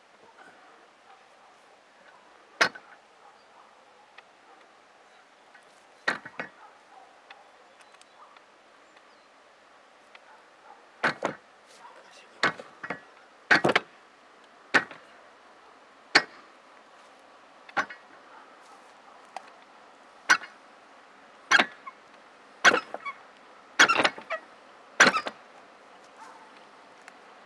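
A series of sharp knocks or impacts at irregular intervals, a few at first, then coming every second or so from about ten seconds in, over a faint steady background.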